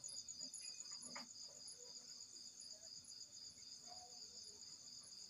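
Faint, steady chirring of insects: a rapidly pulsing high trill.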